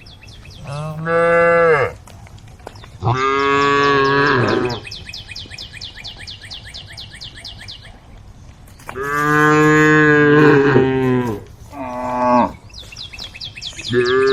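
Cows mooing: about five drawn-out calls of one to two seconds each, the longest near the middle. Between calls a fast, even high-pitched ticking runs for several seconds.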